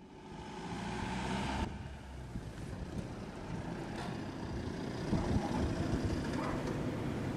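Steady low background rumble with hiss, fading in at the start. The hiss drops away about a second and a half in, and the rumble carries on with small irregular knocks.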